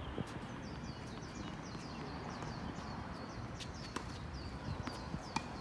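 Mixed doubles play on a court: players' shoes squeak and shuffle in quick repeated chirps, with a few sharp hits about two-thirds of the way in and near the end.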